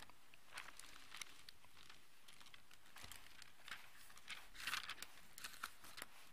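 Faint rustling of thin Bible pages being leafed through by hand, a scatter of soft crisp page flicks, loudest a little past the middle.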